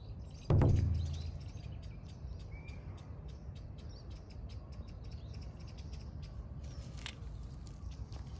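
A single heavy thump about half a second in, then birds chirping over light scattered ticks and rustles.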